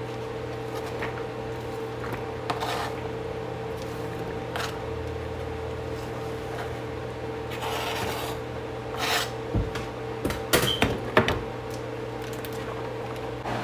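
Chef's knife blade scraping chopped red onion across a plastic cutting board and into a pan: several short scrapes, then a quick run of knocks and clatter about ten to eleven seconds in, the loudest part. A steady appliance hum runs underneath.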